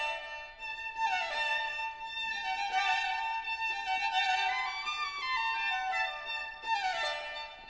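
Background classical music: violin playing quick falling runs over and over against a steady held note.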